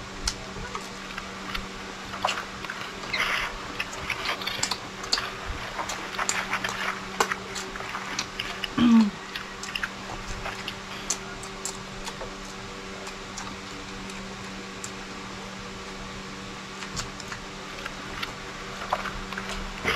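Close-miked chewing and eating by hand: wet mouth sounds, lip smacks and small clicks, busiest in the first half and sparser later. About nine seconds in, a short hummed voice sound is the loudest moment, over a steady low electrical hum.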